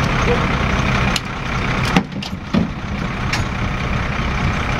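Fire engine's engine running steadily: a low drone under a steady hiss, with a few short knocks in the middle.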